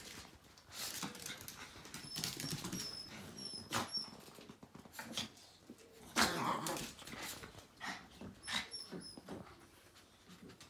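Small dogs play-fighting, growling and whining in bursts amid scuffling, with the loudest outburst about six seconds in.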